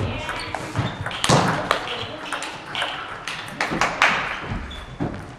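Celluloid-style table tennis balls clicking off paddles and the table in an irregular rally rhythm, a quick series of sharp ticks.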